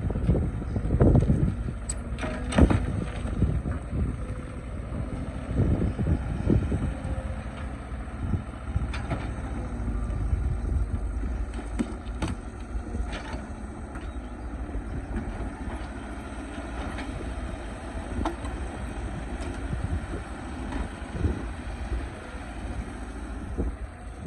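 Excavator engine running steadily under load, with sharp knocks and clanks now and then as the bucket works among rocks.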